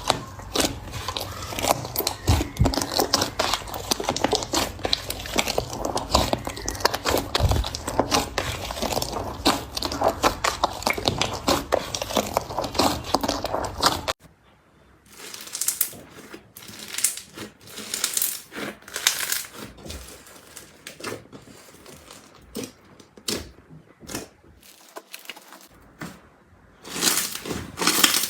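Slime being squeezed and worked by hand: a dense run of small clicks and pops for about the first half, then, after an abrupt change about halfway, sparser, separate squishes and pokes.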